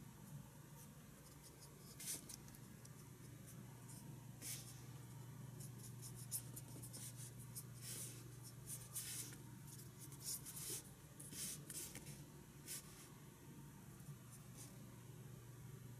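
Two brush pens scratching and swishing on paper at once, in short, irregular strokes, over a faint steady low hum.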